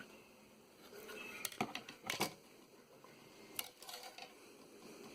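Light clicks and taps of small metal hand tools, such as tweezers or a soldering iron, against a circuit board and bench: a cluster about one and a half to two seconds in, and a couple more near four seconds.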